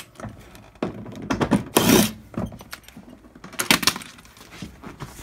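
Tools and seat-mounting hardware clinking and knocking in short, irregular bursts as the stock seat is unbolted from an NB Mazda Miata's floor, with louder bursts about one, two and four seconds in.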